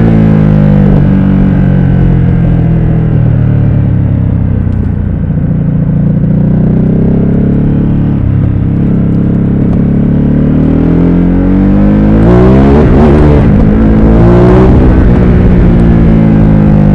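Ducati Supersport S's 937 cc L-twin engine on the move: the pitch falls as it slows down, then climbs as it accelerates. Near the end it revs up hard through two quick upshifts, each a sudden drop in pitch, with wind rushing over the helmet microphone.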